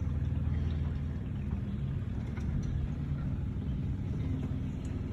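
Motorboat engine running steadily under way, a low, even rumble.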